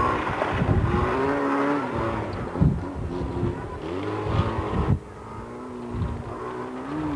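A small hatchback's engine revving hard as the car is driven through a dirt gymkhana course, its pitch rising and falling with throttle and gear changes. The sound drops sharply in level about five seconds in.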